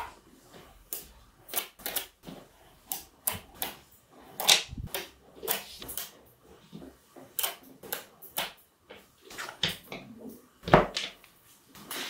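Small magnetic balls clicking and snapping together as strips of them are pushed side by side into a flat sheet: an irregular string of sharp clicks, with a few louder snaps.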